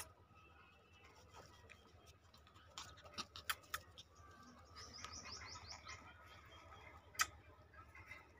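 Faint bird chirping in the background, with a quick run of high, falling chirps about five seconds in, and a few sharp clicks scattered through.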